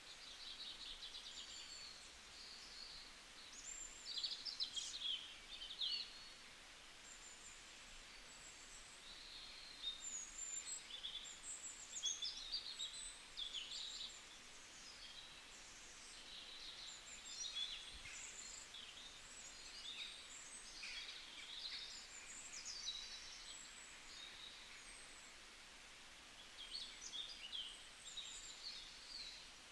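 Several birds chirping and singing, faint, in quick high calls that come and go throughout.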